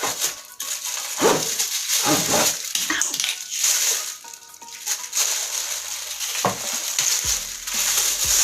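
Packaging being torn open and handled: crinkling, rustling plastic and cardboard, with scattered small clicks and knocks as the microphone stand's parts are unpacked.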